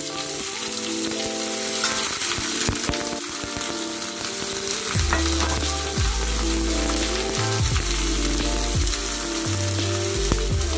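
Chicory greens sizzling in a frying pan of hot olive oil and garlic, spread and stirred in the pan near the end.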